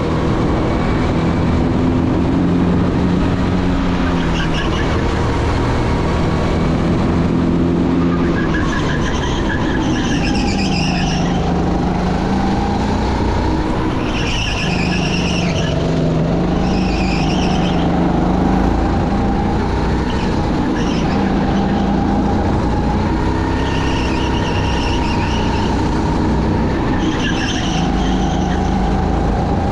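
Go-kart engines running hard on track, their pitch rising and falling as the karts accelerate and lift off through corners. A wavering higher-pitched whine or squeal comes and goes several times.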